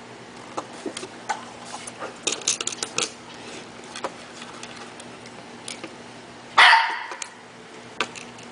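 Light clicks of plastic LEGO pieces being handled, then a single loud dog bark about six and a half seconds in.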